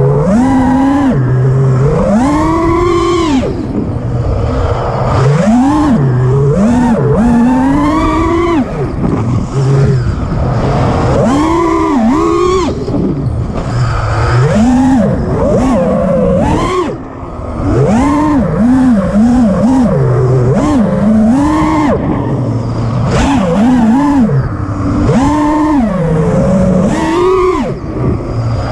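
FPV freestyle quadcopter's brushless motors (T-Motor F60 Pro II, 2500kv) and five-inch props whining as the throttle is punched and chopped, the pitch sweeping up and falling back every second or two through flips and rolls. The whine dips briefly about two-thirds of the way through.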